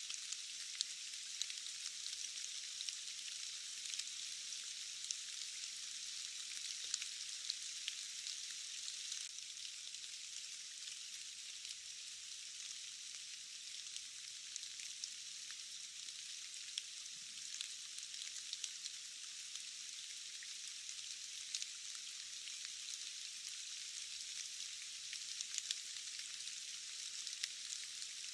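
Rain falling steadily: an even high hiss with many small, scattered drop ticks, and no low rumble.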